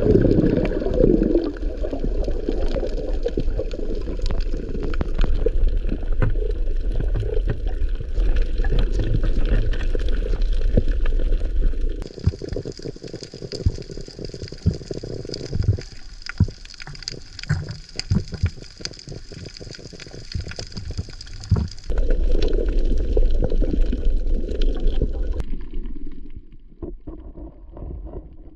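Underwater water noise: sloshing and gurgling against an action camera's waterproof housing, with many sharp crackling clicks throughout. The rush of water is loud at first, drops away for about ten seconds from roughly twelve seconds in, where the clicks stand out, then swells again briefly before fading near the end.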